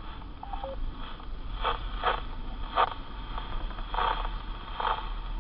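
Amateur radio repeater's short two-note courtesy beep after net control unkeys, followed by radio hiss with a few brief crackles over a steady low hum, while the net waits for the called station to answer.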